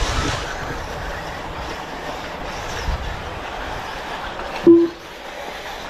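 Steady running noise of electric RC buggies racing, with a brief loud beep about three-quarters of the way in.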